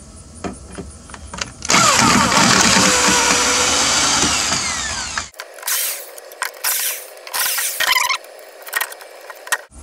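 Cordless drill backing screws out of caster-wheel mounting plates on a wooden board: one long run of about three and a half seconds, then a string of short bursts.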